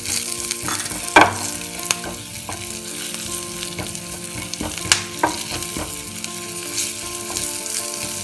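Chopped green chillies and coriander powder sizzling in hot oil in a steel frying pan, the tadka tempering for a chutney, while a wooden spatula stirs and scrapes them, with a few sharp knocks of the spatula against the pan.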